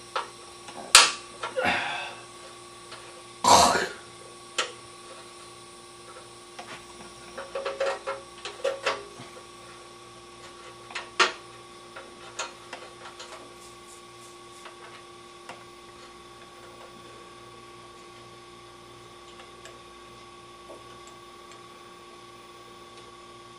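Scattered clicks and taps of a tool and hands loosening the choke cable clamp on a small-engine carburetor. A louder short noise comes about three and a half seconds in, and a cluster of light clicks follows about a third of the way through. After that there is little but a steady hum.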